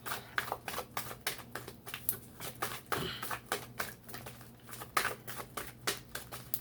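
Tarot cards being shuffled by hand: a quick, irregular run of light card clicks and snaps, several a second.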